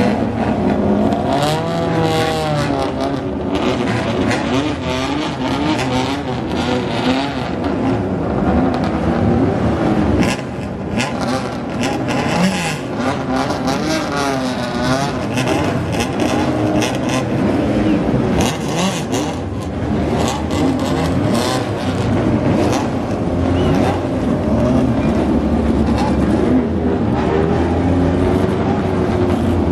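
Several race car engines revving hard and overlapping, their pitch climbing through each gear and dropping at the shifts and under braking.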